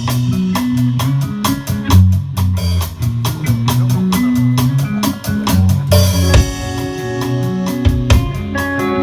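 Band playing an instrumental intro: a drum kit keeps a steady beat with kick, snare and rimshots under a moving bass line. About six seconds in, a cymbal crash and held chords come in.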